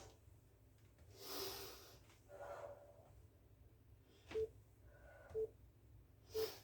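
A loud breath through the nose, sniffly and airy, about a second in, then three short beeps exactly a second apart from a workout interval timer counting down the end of a work interval.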